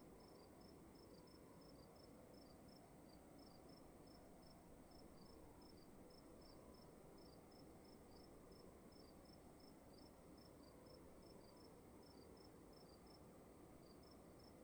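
Crickets chirping faintly in quick, evenly repeated short chirps, over a steady high-pitched trill and a low, even room hiss.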